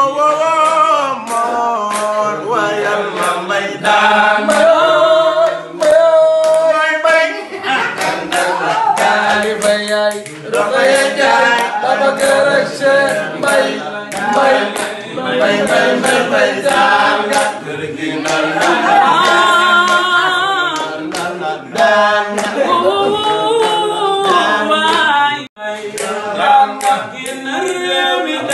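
Men singing unaccompanied in Wolof, the lead passing from one singer to another, with scattered hand claps.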